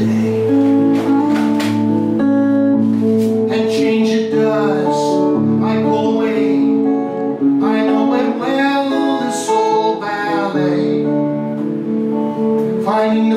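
Acoustic guitar music with singing.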